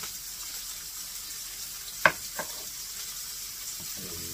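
Hamburger patties sizzling steadily in a frying pan on a gas burner, with two sharp knocks close together about two seconds in.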